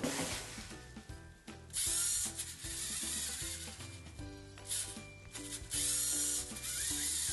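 LEGO Mindstorms motors whirring with a gear-train buzz in short bursts, several times, as the two-wheeled balancing robot drives its wheels back and forth to stay upright. Soft background music underneath.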